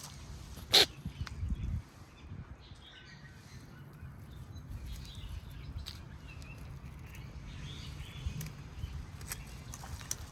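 Outdoor ambience with a low rumble and scattered faint bird chirps, and one sharp click about a second in.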